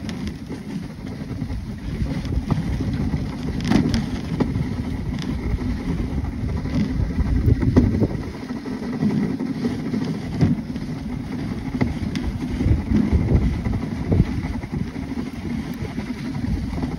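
Dog sled running over a packed-snow trail behind its team: a steady rough rumble and scrape from the runners, uneven in level, with a few sharp knocks.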